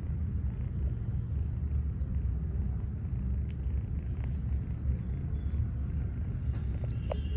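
Persian kitten purring: a steady low rumble.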